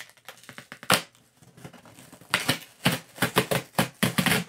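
Packaging being handled and torn open by hand. There is one sharp crack about a second in, then a quick run of crinkling, tearing crackles through the second half.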